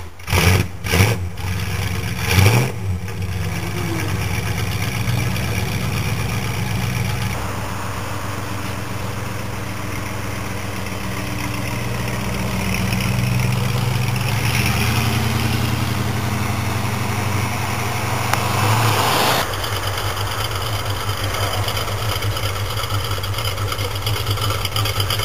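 Muscle car V8 engine starting with a few sharp throttle blips, then idling with a steady low rumble. About nineteen seconds in, the sound changes abruptly to another steady engine idle.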